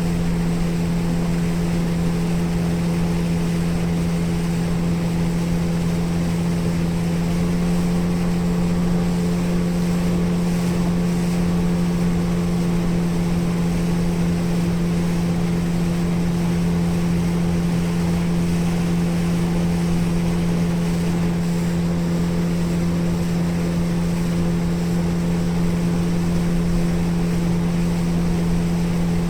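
Motorboat outboard engine running at a steady cruising speed, a constant drone with a strong low hum, over hull and water noise and wind on the microphones.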